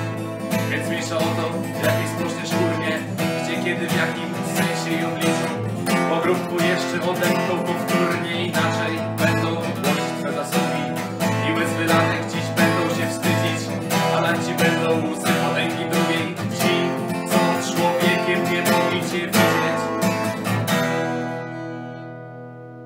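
Acoustic guitar strumming chords in an instrumental passage. About 21 seconds in the strumming stops and the last chord rings on and fades.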